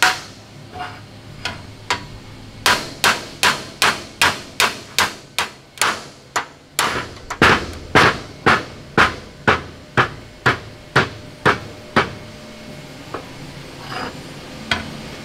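Mallet blows on the seized pivot of a WWII Grant tank's turret-basket seat, knocking it free. A few spaced blows, then a quick run of about three a second, then steadier blows about two a second, thinning to a few light knocks near the end.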